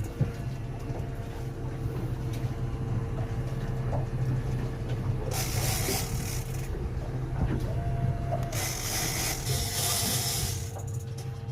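Outboard engine idling with a steady low hum and a faint steady tone. Two stretches of hiss come over it, about five and nine seconds in.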